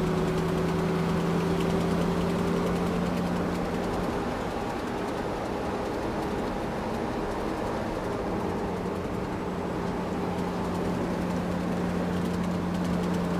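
A small motor humming at one steady pitch over a hiss, with a fainter higher tone above the hum.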